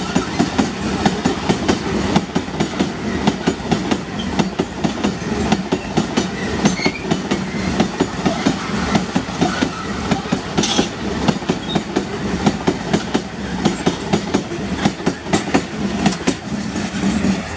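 Iron-ore train's wagons rolling past close by, their wheels clattering steadily on the rails.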